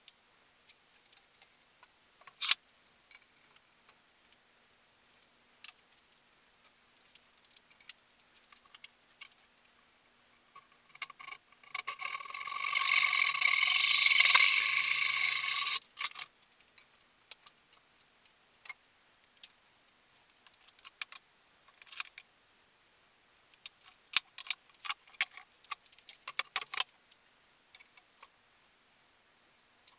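Workshop handling noises: scattered clicks, knocks and rattles of wood pieces and tools being moved. About twelve seconds in, a loud whining, hissing mechanical noise runs for about four seconds and then stops abruptly.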